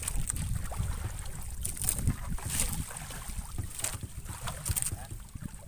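Wind rumbling on the microphone aboard a small outrigger fishing boat at sea. Short splashy hisses every second or so come from water as a wet gill net is hauled up over the side.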